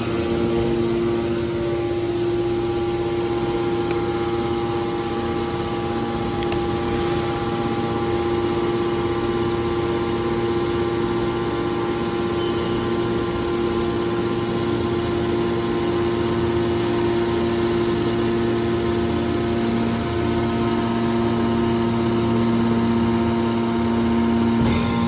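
Metal baler machine running with a steady drone of several held tones, with no change in pitch or load.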